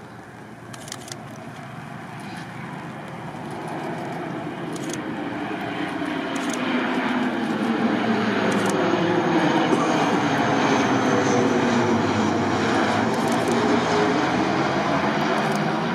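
Saab 2000 turboprop airliner on final approach, its two Rolls-Royce AE 2100 turboprops and six-blade propellers running. The sound swells steadily as the aircraft closes in, then holds loud as it passes low by, with slowly sweeping, wavering pitch bands.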